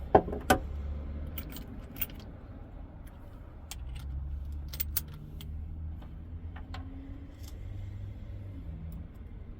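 A string of light clicks and rattles from small hard objects being handled, the two loudest about half a second apart at the start, over a low steady hum.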